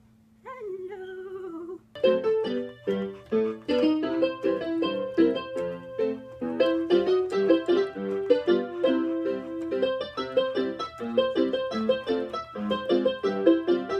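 A single high-pitched 'hello', then piano music with quick, busy notes from about two seconds in.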